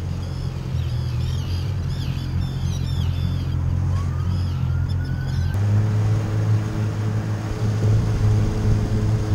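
Boat engine running steadily under wind noise, with high chirping calls over it; a little past halfway this cuts to steady background music.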